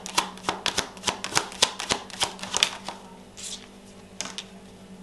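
A deck of tarot cards being shuffled in the hands: a quick run of crisp card clicks, thinning out after about three seconds.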